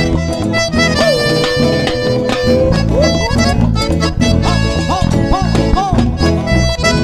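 Live cumbia band playing at full level: a steady bass-and-drum beat under a lead melody, with one long held note followed by short sliding notes.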